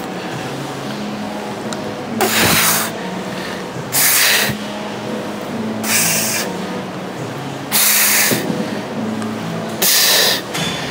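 Forceful exhalations blown out through the mouth, one with each rep of a cable curl, about every two seconds, five times.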